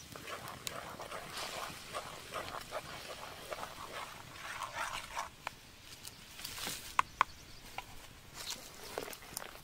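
Thick spicy sauce bubbling and popping in a pan over a wood fire, an irregular patter of small pops with a couple of sharp clicks about seven seconds in.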